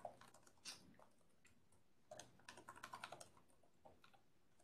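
Faint typing on a computer keyboard: a few scattered keystrokes, then a quick run of them about two seconds in.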